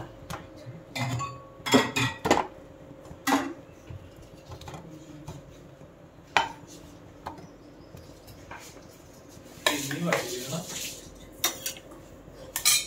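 Steel spatula knocking and scraping against an iron tawa as a kulcha is pressed and moved on it: a string of sharp, irregularly spaced clanks, with a longer scrape about ten seconds in. A faint steady hum sounds underneath.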